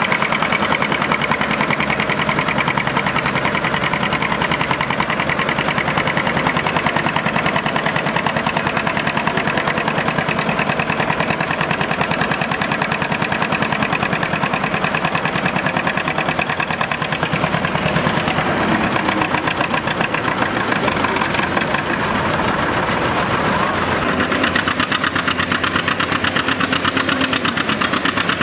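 John Deere two-cylinder tractor engines running, the exhaust popping in a rapid, steady beat.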